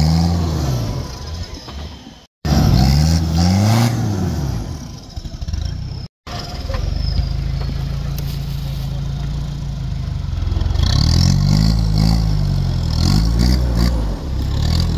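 Diesel engine of a short-wheelbase Toyota Land Cruiser 70 revving up and down in repeated bursts under heavy load as it claws up a muddy, rutted climb, with a steadier stretch in the middle. The sound cuts out briefly twice, at about two and six seconds in.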